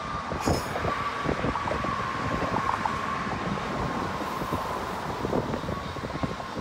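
Freight train's autorack cars rolling past, steel wheels clattering on the rails in a steady stream of short knocks. Wind buffets the microphone, and a faint steady thin whine runs under it.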